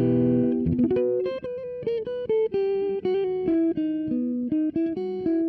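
Electric guitar, a Gibson SG with P90 pickups through a JTM45-style tube amp tone that sits between clean and slightly dirty: a strummed chord rings for about the first half second, then a single-note melodic line is picked, about three to four notes a second.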